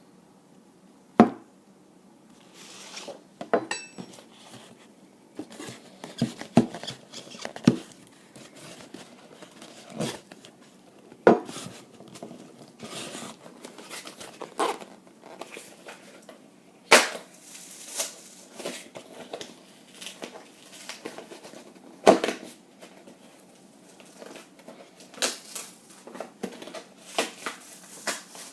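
A shipping package being handled and worked open by hand: rustling, crinkling and tearing of packing material, broken by scattered sharp knocks and thumps as it is set down and pulled at.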